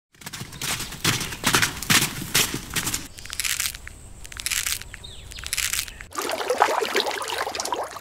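Zebra hooves crunching on dry gravel as the animals walk, about two to three steps a second. After a cut near three seconds there is a quieter stretch of scattered faint crunches and clicks. From about six seconds in, a dense wash of water sound continues.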